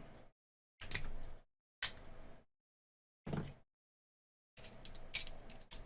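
A lock pick being zipped out across the pins of a small Master Lock padlock: short runs of metallic clicking and scraping, four passes with pauses between. The zip opens the lock on the first try.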